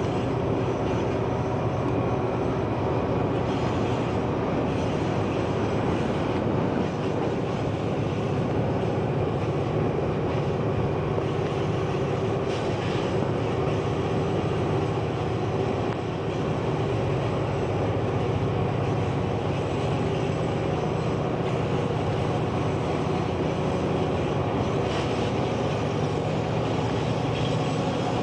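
Diesel-electric freight locomotives passing at close range under power: a loud, steady engine drone that does not let up.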